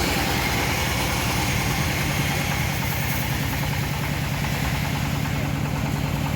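The engine of a homemade bandsaw sawmill running steadily with an even beat.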